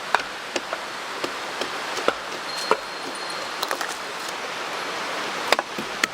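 Campfire crackling, with irregular sharp snaps and pops, over the steady rush of a mountain stream.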